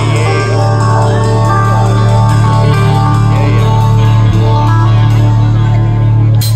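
Live country-rock band playing loud: electric guitar lines over a long held low note, with no singing.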